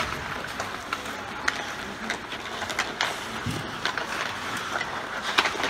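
Ice hockey play: skate blades scraping and hissing on the ice, with sharp clacks of sticks on the puck and boards coming every second or so.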